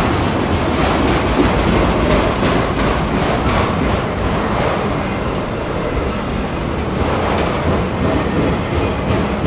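Freight train of enclosed autorack cars rolling past at a steady pace, with a loud, even rumble of steel wheels on rail and a light clacking of the wheels.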